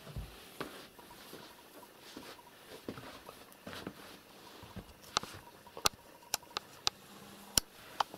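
Soft pattering and shuffling as a mother cat and her two kittens move about on a carpet. A run of sharp clicks comes in the second half, the loudest near the end.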